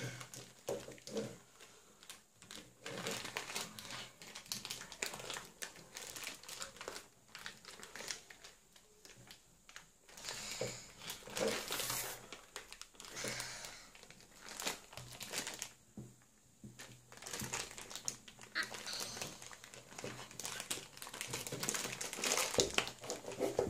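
Thin clear plastic toy wrapper crinkling and rustling, on and off, as a small child's hands pull and twist at it, trying to tear it open.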